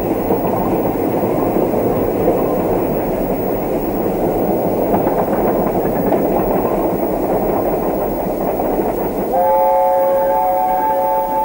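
A train running along the track with a steady rumble and clickety-clack. Near the end a steady chord of three held notes sounds, like a train horn, and the rumble drops away.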